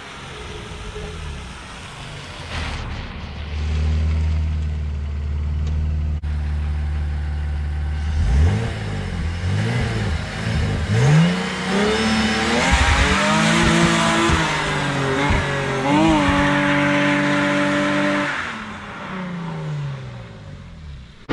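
BMW E46 3 Series with a swapped-in M54B25 2.5-litre straight-six driving hard past, the engine note rising again and again through gear changes and then held high before it falls and fades away. The engine now revs freely, its undersized fuel pump having been replaced.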